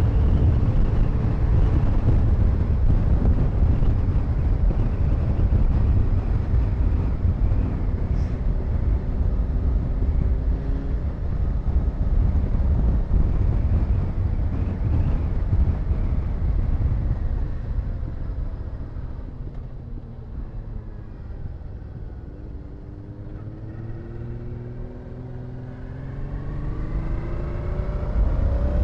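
Wind rushing over a helmet camera on a moving Honda Deauville V-twin motorcycle, with the engine running underneath. About two-thirds through, the wind dies down as the bike slows and the engine note comes through, rising in pitch, and near the end the engine pulls away, rising again as the wind builds.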